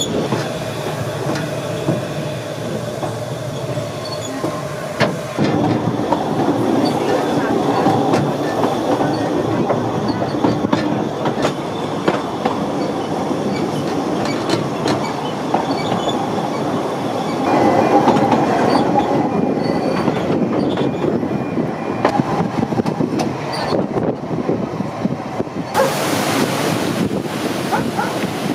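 Narrow-gauge railway carriage running along the track, heard from aboard: a steady rumble of wheels with frequent clicks over the rail joints. A louder rushing hiss joins in near the end, from a waterfall stream beside the line.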